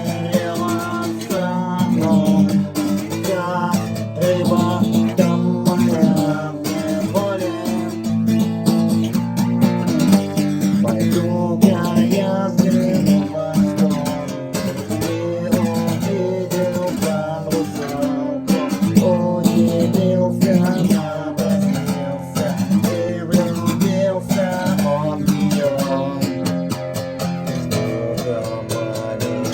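Acoustic guitar being strummed, steady chords with frequent sharp string strokes.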